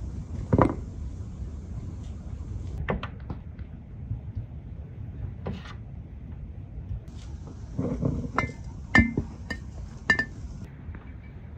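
Glass jars and bottles knocking and clinking on a wooden table as peeled citrus segments are dropped into them. Scattered single knocks, with a quick run of short ringing glass clinks about three quarters of the way in.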